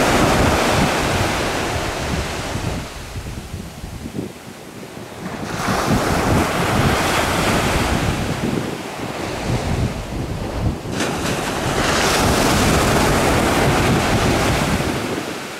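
Small waves breaking and washing up a sandy beach, the surf swelling and falling back about three times. Wind buffets the microphone with a low rumble underneath.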